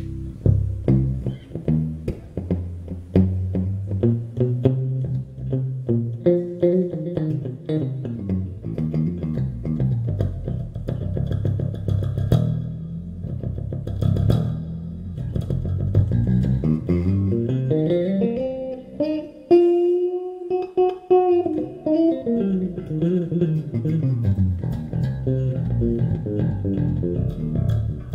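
FL Custom Master Custom 003 six-string electric bass with Aero Custom K-series pickups, played solo through an amp. Its three pickups are all on, with the middle one wired in series. It plays runs of plucked notes climbing and descending, with a few held high notes about two-thirds of the way through.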